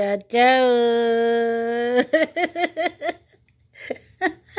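A woman's voice holding a long, drawn-out sung "ciao", then a quick run of laughter, about six short bursts.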